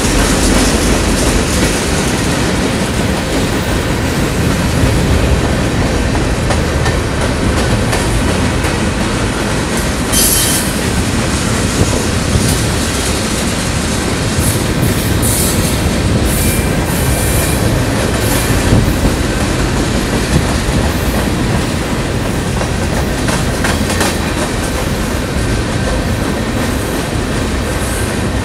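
A freight train of covered hopper cars rolling steadily past, its steel wheels rumbling on the rails. Brief, sharp high-pitched sounds from the wheels come now and then, mostly in the middle.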